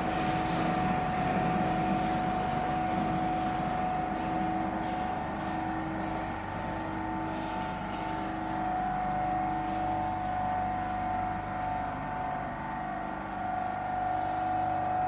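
Steady hum of industrial machinery: several steady tones over a hiss, easing slightly about halfway through.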